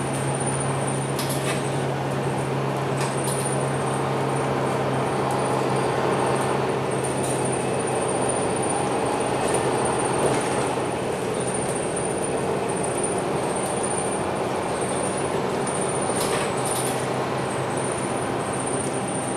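Interior sound of a MAN NL323F low-floor city bus driving slowly: the diesel drivetrain runs steadily with a constant low hum and a thin high whine over road noise. A few brief clicks or rattles are heard along the way.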